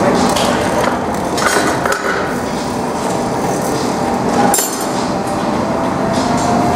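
Steady loud rush of a gas-fired glory hole burner while a glass piece reheats in it, with a few metal clinks of the steel blowpipe turning on its rest; one sharp click about four and a half seconds in.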